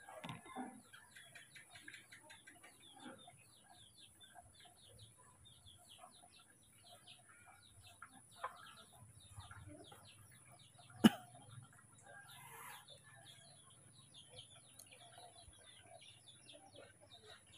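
Faint background birds: many short chirps throughout, with the clucking of fowl. A single sharp knock about eleven seconds in is the loudest sound.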